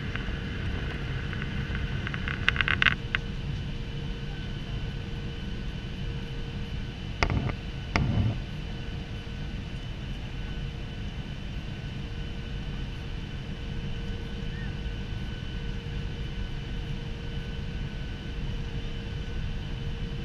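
Steady cabin noise inside a Ryanair Boeing 737 on approach: engine and airflow rumble with a constant hum. A brief rattle about two and a half seconds in, and two knocks about seven and eight seconds in.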